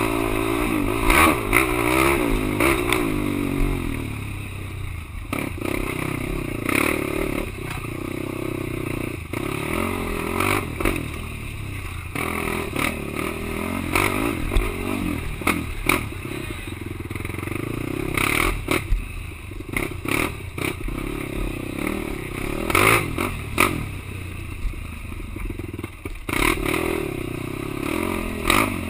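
Quad (ATV) engine running hard, its revs repeatedly rising and falling, with frequent sharp knocks and clatter scattered throughout.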